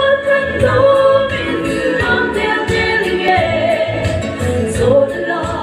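Two women singing a gospel song together into microphones, holding long sung notes.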